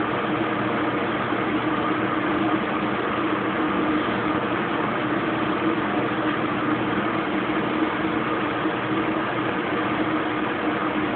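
Kenmore Oasis top-load washing machine spinning at high speed in its spin cycle: a steady machine hum with a constant tone and no change in speed.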